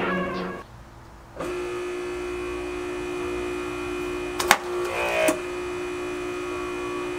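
Electric pressure washer motor running with a steady hum, broken by two short sharp noises a little past halfway.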